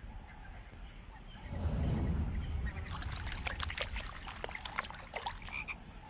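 One low croak of an African bullfrog about a second and a half in, lasting about a second, followed by a scatter of small clicks and ticks.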